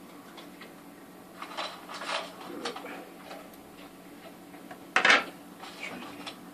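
Metal tweezers clicking and scraping inside a small plastic pot as packing is pulled out of it, then one sharp clack about five seconds in as the tweezers are set down on the hard worktop. A faint steady low hum runs underneath.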